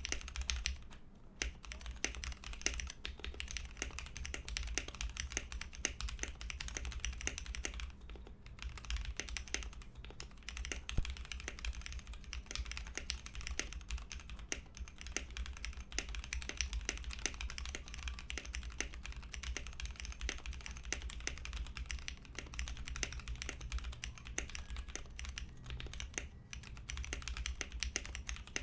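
Continuous fast typing on a custom 60% mechanical keyboard (GK61XS, stacked acrylic case, aluminium plate) with factory-lubed Gateron Cap Milky Yellow linear switches and PBT keycaps, on a thick deskmat. The keystrokes are dense, with a few short pauses, over a steady low hum.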